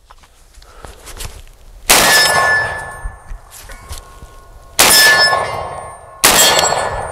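Three 12-gauge shotgun slug shots from a JTS AR12 semi-automatic shotgun, about 2 s, 5 s and 6.3 s in, each followed by a ringing metallic clang that dies away over about a second.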